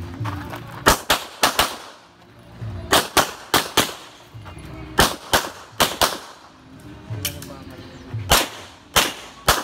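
Gunshots from a shooter working through a timed practical-shooting stage, fired mostly as quick pairs about a fifth of a second apart. The pairs come in clusters with short pauses between them, about fifteen shots in all.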